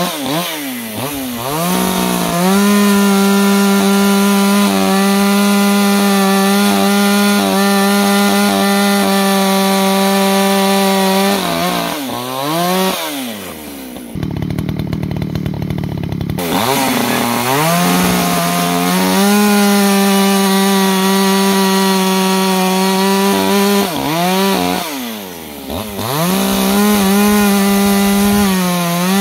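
Echo CS-620P two-stroke chainsaw running at full throttle cutting wood. Its revs dip sharply and recover about a second in and again near the end, and midway it drops to idle for a couple of seconds before revving back up.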